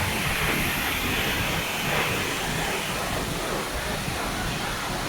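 The Gega waterfall: falling water making a steady, loud rushing noise.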